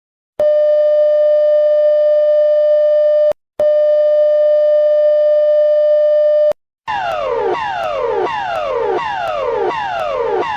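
Emergency alert tones: two long, steady, buzzy electronic beeps of about three seconds each at one pitch. From about seven seconds in they give way to a fast, repeating alarm whose pitch falls on each sweep, about two sweeps a second.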